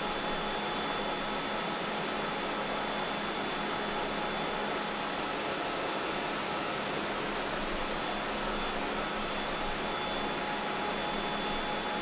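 Steady assembly-hall background noise: an even hiss with a few constant hum tones and no separate knocks or tool sounds.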